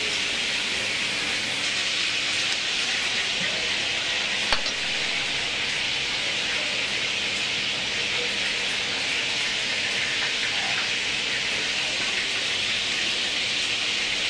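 Steady hissing kitchen background noise, with one sharp click about four and a half seconds in.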